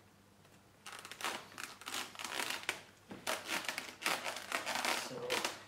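Crinkling and rustling handling noise, starting about a second in and going on irregularly, as the foam RC plane is gripped and shifted on a cardboard box lid.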